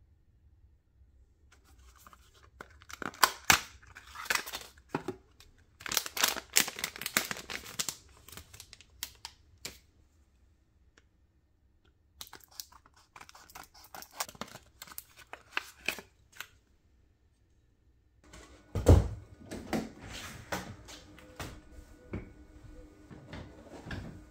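Cardboard and plastic packaging handled and opened with rustling and tearing, then scissors snipping through a plastic blister pack. Near the end a heavy thump and knocks from someone climbing a wooden stepladder, over a steady hum.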